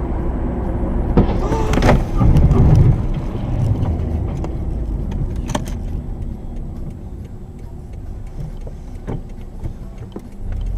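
Car driving at speed heard from inside the cabin: a steady low engine and road rumble. Several sharp knocks come about one to two seconds in, the rumble is loudest soon after, and then it slowly grows quieter.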